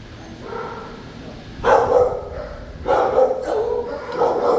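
Shelter dogs barking in their kennels: a quieter stretch, then a run of loud barks in quick succession from about a second and a half in.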